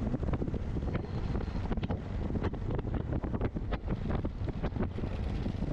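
Strong wind buffeting the microphone: a dense low rumble with frequent crackles and knocks.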